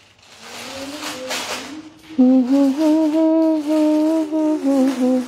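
A woman humming a slow tune without words, holding long steady notes; it is soft at first and grows louder from about two seconds in, with a short breathy hiss about a second in.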